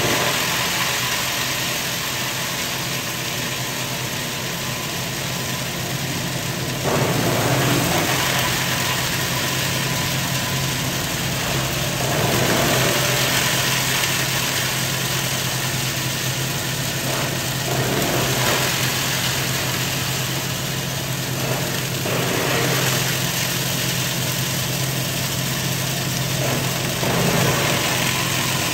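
Coconut husk chipping machine, driven by a 5 hp electric motor, running steadily while cutting husk into small chips, a constant motor hum under the noise of the cutting. The noise swells in louder stretches about every four to five seconds.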